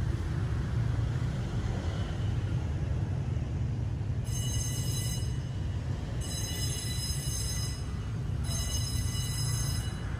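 Outdoor background with a steady low rumble, and three high, shrill buzzes starting about four seconds in, each lasting one to one and a half seconds with short gaps between them.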